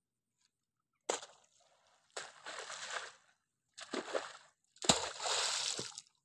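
A shovel is driven into wet, sticky mud and clods are lifted and dropped with a sloppy, splashing sound. There are four separate strokes, about a second apart, and several begin with a sharp strike of the blade.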